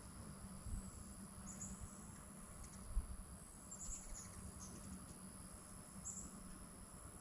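Faint outdoor ambience: short, high-pitched chirps every second or two over a steady high insect drone and low wind rumble, with one brief thump about three seconds in.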